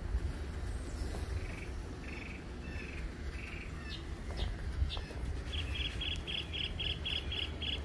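Songbirds calling in the surrounding trees: a few short high chirps, then from about five and a half seconds in a fast run of repeated high notes, about four a second. A steady low rumble lies underneath.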